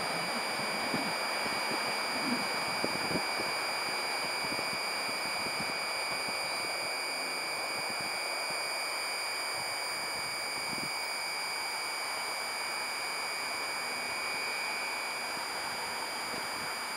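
Steady hiss as a SEPTA Silverliner V electric commuter train fades away down the line, with a few soft knocks in the first three seconds and a faint steady high whine.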